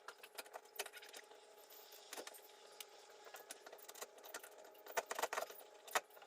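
Flathead screwdriver forcing a screw into a doorknob's metal plate: scattered light metallic clicks and scrapes, with a cluster of louder clicks about five seconds in and one sharp click near the end.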